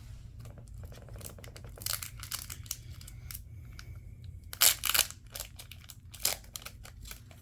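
Foil wrapper of a Yu-Gi-Oh booster pack being torn open and crinkled in short crackling strokes, the loudest a little before five seconds in.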